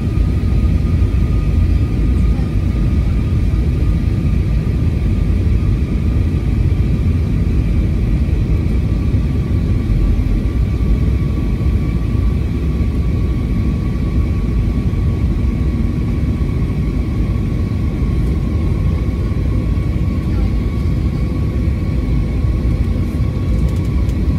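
Airbus A321neo cabin noise on approach: a steady low rumble of airflow and engines, with a thin high whine from its CFM LEAP-1A engines held throughout.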